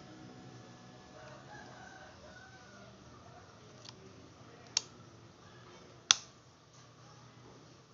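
A rooster crowing faintly in the background, and two sharp clicks, the louder one about six seconds in.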